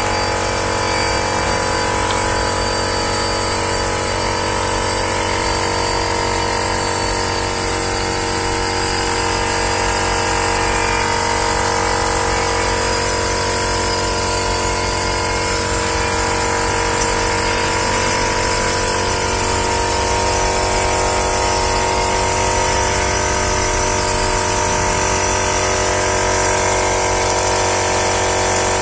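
Shrink-film packaging machine running steadily: an even mechanical hum with several steady high whines and no distinct knocks or strokes.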